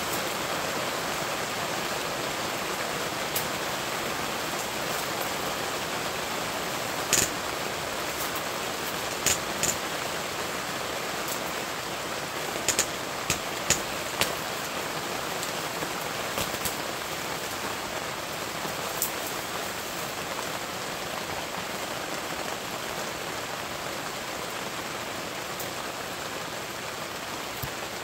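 Steady rain on a fabric canopy roof, an even hiss with a scatter of sharp ticks, most of them between about a quarter and half of the way through.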